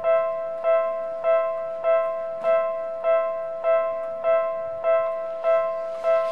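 Japanese railway level-crossing warning bell ringing: the same electronic ding repeats at an even pace, a little under twice a second, warning of an approaching train. A brief rushing noise joins it near the end.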